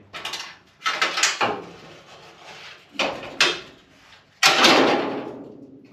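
Trunk lid and rear bumper of a 1972 Chevrolet Nova being handled: a few separate metal clunks and scrapes as the trunk lid is raised. The loudest comes about four and a half seconds in and fades over about a second.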